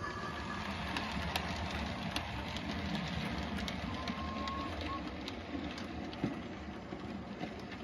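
00 gauge model train running along the track: a steady whirr with scattered light clicks from the wheels on the rails.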